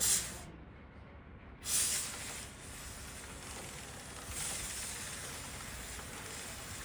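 Aerosol chain-cleaner spray hissing onto a motorcycle drive chain: a short puff at the start, then a long continuous spray from about a second and a half in.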